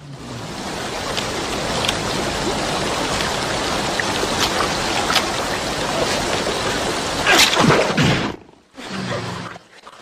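Rushing river water, a steady noisy wash, with a louder, brief sound about seven and a half seconds in. The sound cuts out suddenly around eight and a half seconds.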